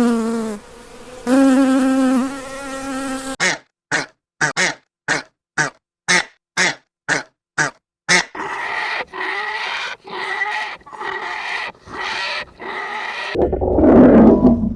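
A flying insect buzzing in a steady pitched drone that breaks off briefly and resumes. A run of short, evenly spaced pulses about two a second follows, then faster rhythmic pulsing. A loud low sound starts near the end.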